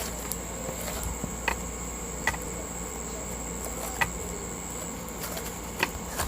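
Fluffy shaving-cream slime being worked in the hands, giving four sharp pops spread across a few seconds, over a steady high-pitched whine.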